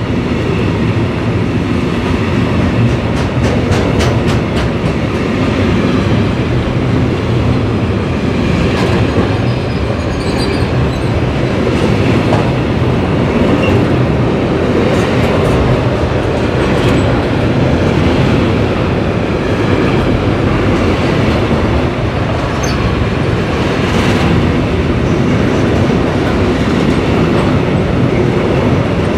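Intermodal freight train of pocket wagons carrying semi-trailers rolling past, its wheels rumbling steadily. Irregular clicks come as the wheels pass over the rail joints, and there are a few brief high wheel squeals.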